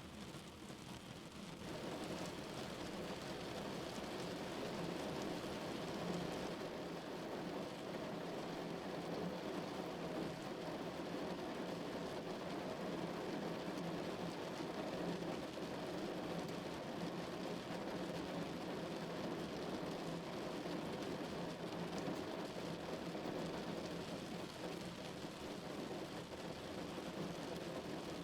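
Rain falling on a car's roof and body, heard from inside the car: a steady, dense hiss that grows louder about two seconds in and then holds.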